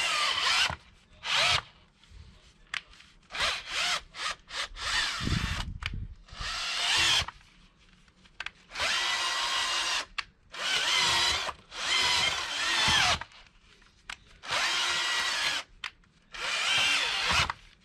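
Cordless drill driving an auger bit into heavy, sticky clay soil, run in repeated trigger bursts with pauses between, the motor whine rising and sagging as the bit bites. A few short stabs on the trigger come early, then longer runs of about a second each.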